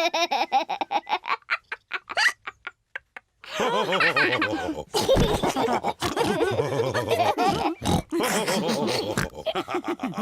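Cartoon pig characters laughing and snorting. The sound breaks off into a short silence about three seconds in, then the laughing and snorting starts up again.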